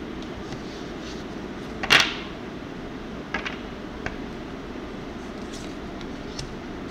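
Oracle cards being handled and laid down on a wooden table. There is one sharp card tap about two seconds in, then a few lighter clicks, over a steady low hum.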